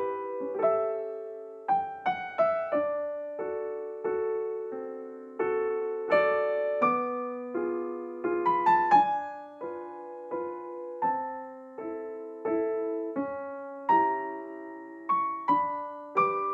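Slow, gentle solo piano music: single notes and soft chords struck every second or so, each ringing and fading before the next.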